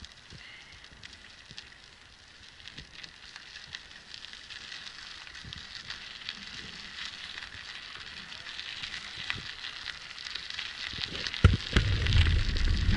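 Footsteps crunching on a gravel path, a steady crackle of small ticks that grows louder as the walk goes on. A louder low rumble comes in about a second and a half before the end.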